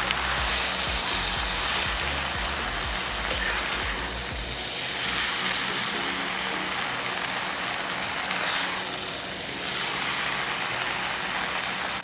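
Chow mein noodles, chicken and vegetables sizzling in a hot wok as they are tossed, the hiss swelling about half a second in and again around nine seconds.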